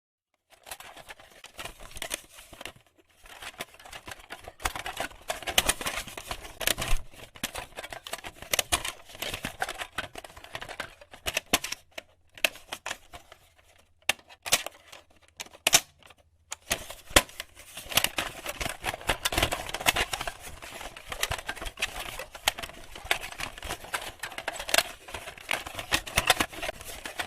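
VHS-style analogue tape playback noise: crackling static hiss full of irregular clicks and pops, with a low hum underneath that cuts off a little past the middle. It thins out into sparser clicks for a few seconds around the middle, then comes back as dense as before.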